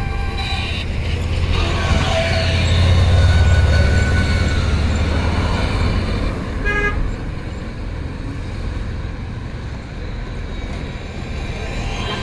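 Road traffic with vehicle horns: a heavy vehicle's low rumble swells and fades over a few seconds while several horns sound, with a short toot about seven seconds in.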